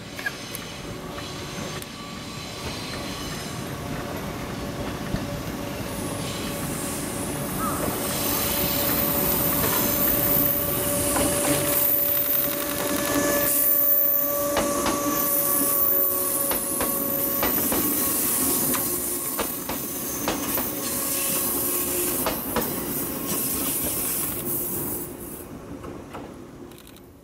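Three coupled KuMoYa 145 series electric service railcars passing: wheels clacking over rail joints under a steady whine. The sound grows louder to a peak about halfway through, then fades as the train moves away.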